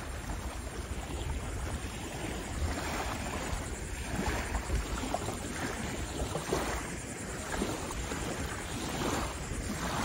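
Wind buffeting the microphone, with small waves lapping and splashing in shallow water.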